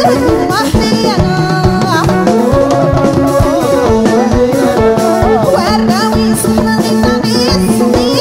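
Soussi Amazigh folk music: hand drums keeping a dense, steady beat under a woman's singing and a winding melody line.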